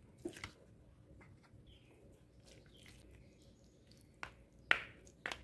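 Faint clicks and light scrapes of a plastic spoon against small aluminium moulds as macaroni is spooned and pressed in: a pair of taps near the start, then three sharper clicks in the last second or so.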